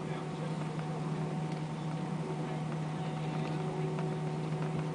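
Steady cabin drone inside an Airbus A320 taxiing after landing, with a strong steady low hum and fainter steady tones above it.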